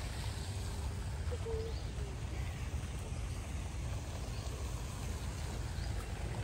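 Steady outdoor background noise, a low rumble under an even hiss. A single short call is heard about a second and a half in.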